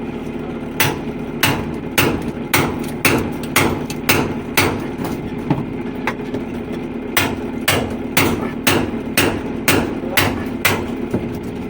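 Hammer strikes, about two a second with a short pause about halfway through, over an engine running steadily.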